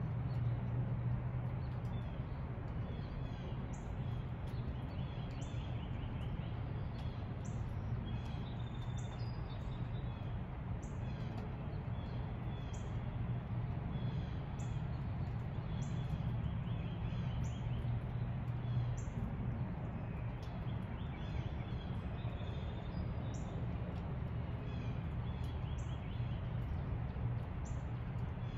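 Songbirds chirping in a dawn chorus, short high notes every second or so with some brief trills, over a steady low rumble.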